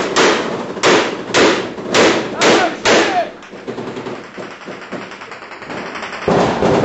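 Celebratory gunfire: about six loud single shots roughly half a second apart, each with an echoing tail, over the first three seconds. Then it goes quieter, and near the end a louder continuous din starts suddenly.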